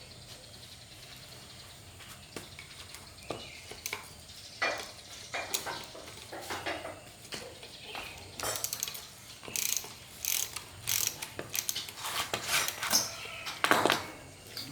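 Hand tools working on metal mower parts: irregular clicks, knocks and short scrapes, growing busier and louder in the second half.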